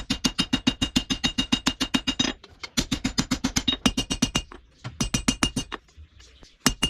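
Rapid hammer blows on steel over an anvil, about five a second, each blow ringing sharply. The hammering comes in runs broken by short pauses, as the hot 52100 bearing steel is forged toward a kukri blade.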